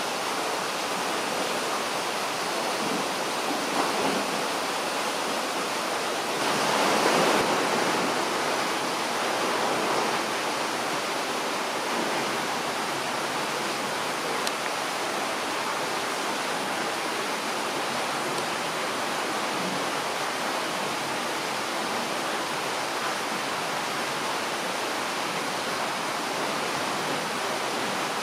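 Steady rushing noise with no distinct events, swelling briefly about 4 seconds in and again around 7 to 8 seconds.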